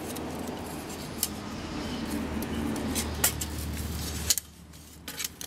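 Thin titanium panels and a wire grate of a folding fire box stove clinking lightly as they are handled and unfolded, with a few sharp metal clicks. Under them runs a steady low rumble that stops suddenly about four seconds in.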